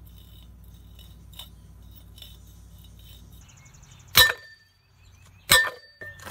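Two hammer blows on a steel drift punch driven into the steel housing of a centrifugal casting machine, about a second and a half apart, each with a short metallic ring, the first about four seconds in after a low steady hum.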